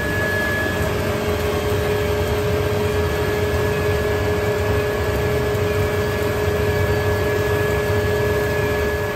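Plastic film squeezing dryer running steadily: a low mechanical hum with a few constant whining tones, as its screw presses water out of washed plastic film through the perforated barrel.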